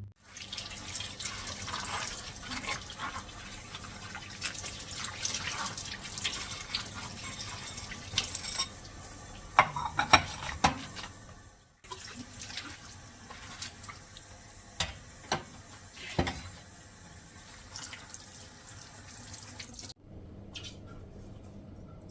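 Water running steadily, with scattered clicks and knocks. It breaks off abruptly about twelve seconds in and again near the end.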